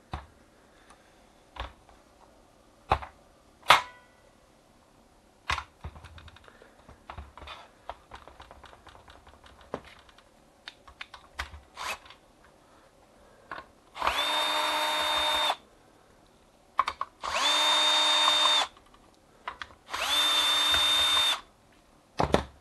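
Scattered clicks and knocks from the plastic fuser unit of a Sharp AR-M700 copier being handled. Then a cordless drill-driver runs three times, about a second and a half each at a steady pitch, turning the screws in the fuser's plastic cover.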